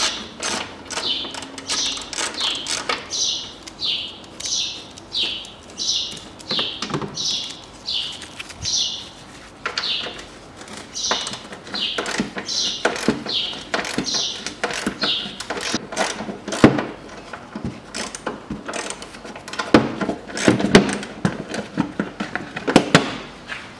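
Screwdriver turning out a screw from a plastic wheel-arch splash shield, with a short high squeak at each turn, about one and a half a second. Louder clicks and knocks follow in the second half as the tool and the loosened piece are handled.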